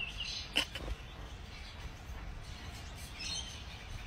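Quiet outdoor background: a steady low rumble with a few faint high chirps, and one sharp click about half a second in.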